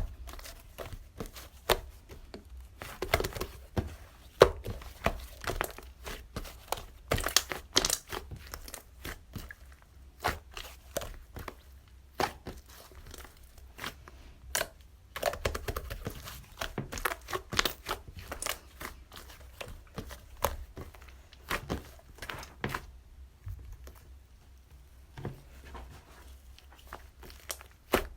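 Close-up crinkling and tearing of paper or plastic, handled in irregular bursts of short crackles and taps.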